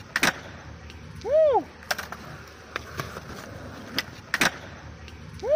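Skateboard popping and landing on concrete during flip tricks: a series of sharp wooden clacks, some in quick pairs. Twice, a short squeak that rises and then falls in pitch stands out as the loudest sound.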